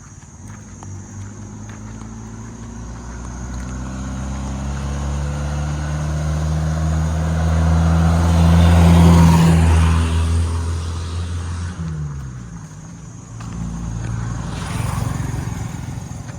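A motor vehicle drives past, its engine growing louder to a peak about nine seconds in, then fading; a second vehicle passes near the end.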